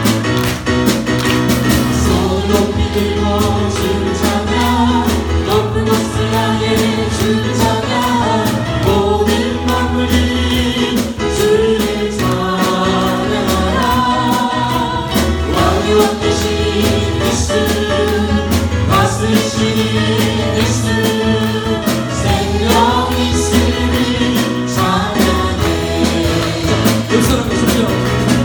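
Gospel praise song: group singing over instrumental accompaniment with a steady bass and beat.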